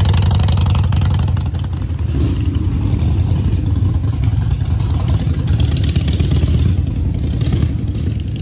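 Motorcycle engine idling: a steady, loud low rumble of rapid, even firing pulses.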